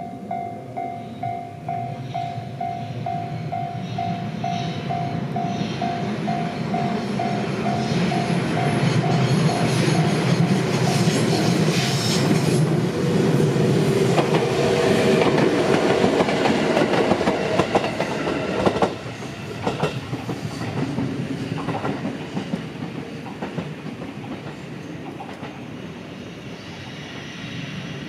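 Level-crossing warning bell dinging rapidly and evenly while an electric train approaches. The train passes over the crossing with running and rail noise that builds to its loudest about halfway through, drops away suddenly as the last car clears, then fades.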